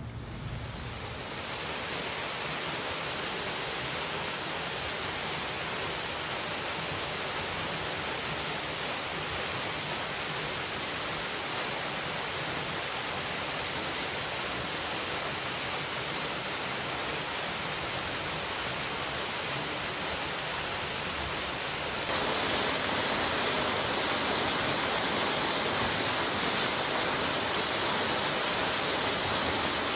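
Small waterfall pouring off a rock ledge and splashing into the lake: a steady rushing hiss. It steps up louder about two-thirds of the way through.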